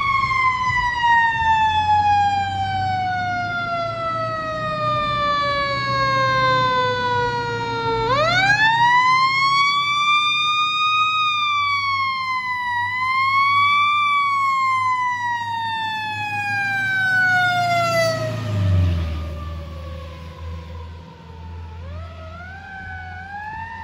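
Fire ladder truck's mechanical siren coasting down in a long falling wail, spun back up about a third of the way in, then winding down slowly again and starting another rise near the end. The truck's engine rumbles underneath and is loudest as it passes, a little past the middle.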